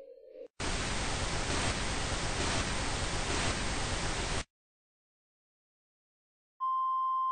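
A burst of loud hissing static that starts and cuts off abruptly after about four seconds. After a moment of silence, a steady electronic beep begins near the end.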